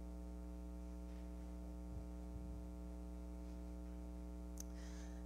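Steady electrical mains hum, a low buzz with many overtones, with a couple of faint low thumps about two seconds in and a soft click near the end.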